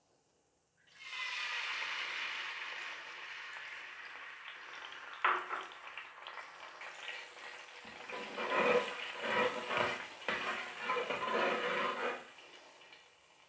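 Ginger-garlic and green-chilli paste dropped into hot oil in a wok: a sudden loud sizzle about a second in that slowly dies down, with a single knock about five seconds in. Near the end a metal spatula stirs and scrapes the paste through the oil and the sizzling grows louder again.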